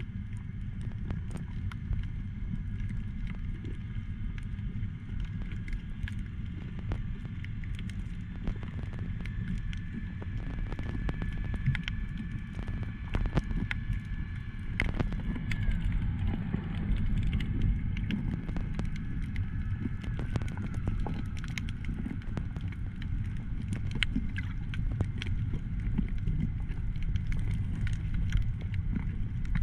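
Underwater sound over a coral reef: a steady low rumble of water around the camera, with scattered crackling clicks throughout. A faint high whine drops in pitch about fifteen and again about twenty seconds in.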